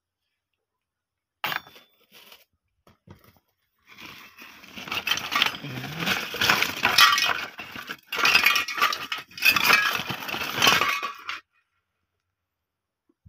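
Mixed plastic and metal scrap clinking, rattling and rustling as hands rummage through a woven plastic sack of junk. A single knock comes about a second and a half in, then a few small clicks, then a long stretch of dense clattering from about four seconds in that stops abruptly near the end.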